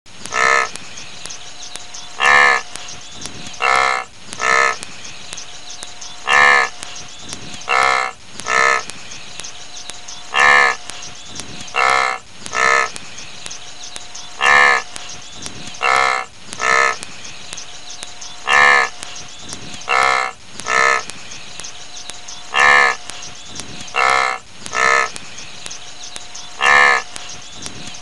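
Wildebeest (gnu) calling: short nasal honking grunts, repeating in an even cycle of three calls, one then a quick pair, about every four seconds.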